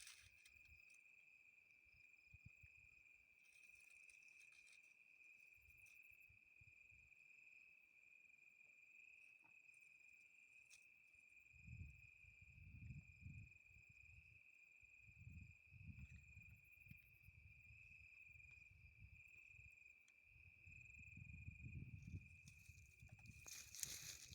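Faint, steady high insect trill, like a cricket's, running without a break. Low dull rumbles come and go from about halfway through.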